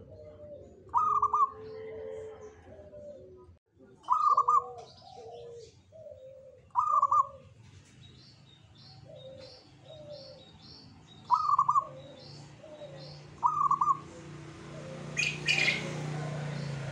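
Zebra dove (perkutut) singing its cooing song: five phrases, each a loud rising opening note followed by a run of lower, clipped coos. Near the end a rushing noise with a low hum swells up behind it.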